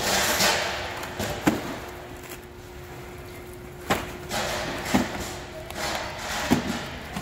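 Plastic wrap rustling as plastic canisters are handled and pulled from their wrapping, with four sharp knocks as canisters and trays are set down on a work table. A faint steady hum runs underneath.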